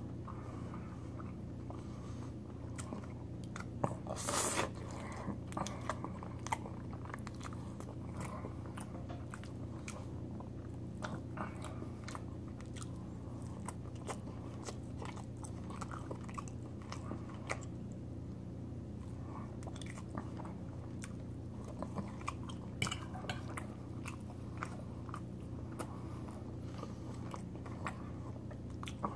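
Close-up chewing and wet mouth clicks of a person eating chicken alfredo spaghetti and grilled chicken, with a louder mouth noise about four seconds in, over a steady low hum.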